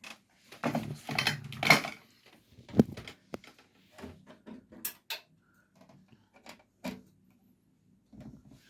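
PC parts and their packaging being handled: rustling and rattling in the first two seconds, then a string of sharp clicks and light knocks.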